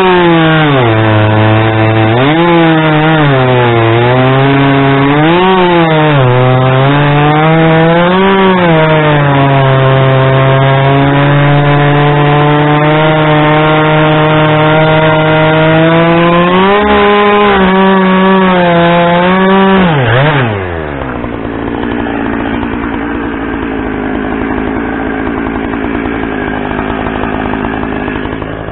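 Two-stroke chainsaw at full throttle cutting through a log, its pitch dipping and recovering repeatedly as the chain bogs down in the cut. About twenty seconds in the throttle is released and the pitch drops sharply, leaving a quieter, steady engine sound.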